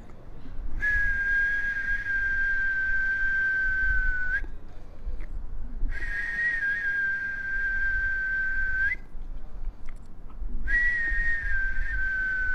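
A person whistling three long, steady notes of about four seconds each, with short pauses between them. Each note starts a little higher and settles slightly lower, with breath noise around the tone.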